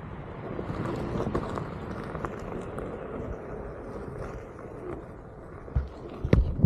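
Onewheel electric board rolling along a wooded trail: steady tyre and ground rumble with scattered small crackles, and a few sharp knocks near the end.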